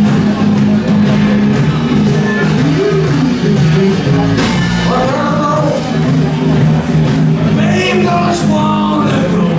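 Live rock band playing, with electric guitar over a steady low bass line and a lead line that bends up and down in pitch.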